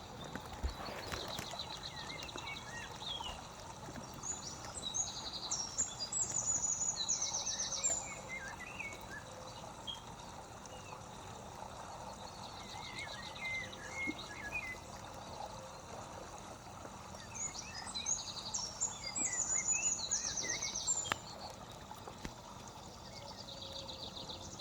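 A songbird sings the same complex phrase twice, each lasting a few seconds with high rapid trills and chirps, and gives shorter trills near the start and end. Underneath is a steady rush of running water.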